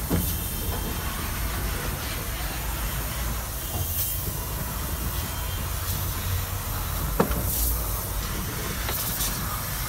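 Steady low rumble with hiss, broken by a sharp click just after the start and another about seven seconds in.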